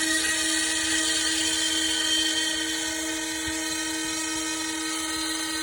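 CNC router spindle running at speed with a steady high-pitched whine as it carves wood.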